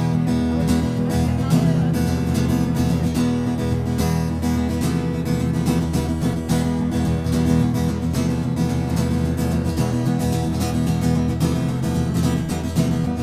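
Acoustic guitar strummed continuously in a steady, brisk rhythm, solo and without singing.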